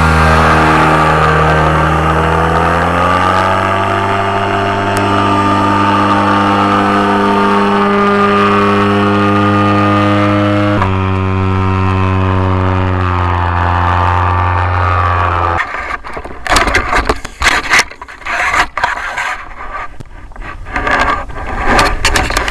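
Rotax 447 two-stroke engine of a powered parachute running steadily, its pitch rising slightly a few seconds in and dropping a step about halfway through, then stopping suddenly about two-thirds of the way in. After that come irregular scrapes and knocks of the camera being handled.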